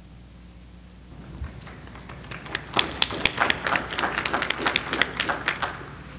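Scattered applause from a small group: a few seconds of separate, irregular claps that start about a second and a half in and die away near the end.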